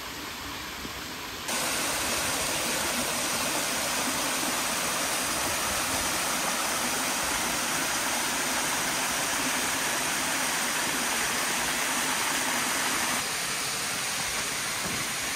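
Waterfall pouring into a rocky plunge pool: a steady rush of falling water, stepping up louder about a second and a half in.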